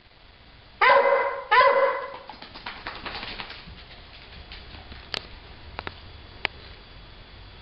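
A beagle-type dog barks twice in quick succession about a second in. A few faint clicks follow.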